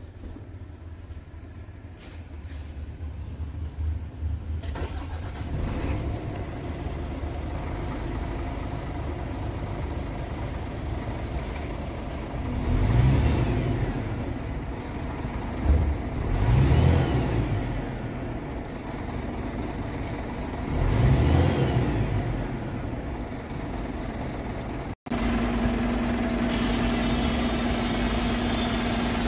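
Scania R truck's diesel engine starting up within the first five seconds and running, revved three times with each rev rising and falling back, heard inside the cab. Near the end it idles steadily with an even hum, heard from outside the truck.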